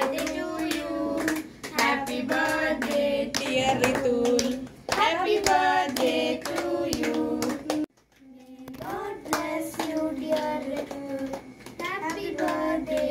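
Children singing a birthday song together while clapping along, cut off briefly about eight seconds in before the singing and clapping resume.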